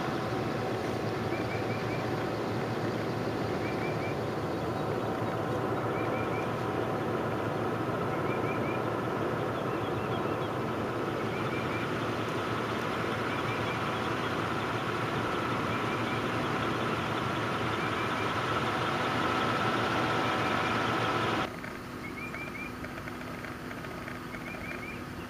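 An engine runs steadily and cuts off sharply about 21 seconds in, leaving quieter outdoor background. A bird gives short high chirps every second or two throughout.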